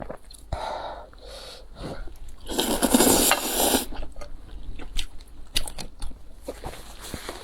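Close-up eating sounds: a loud, airy noodle slurp lasting just over a second, about two and a half seconds in, with a softer slurp earlier and small wet chewing and utensil clicks around it.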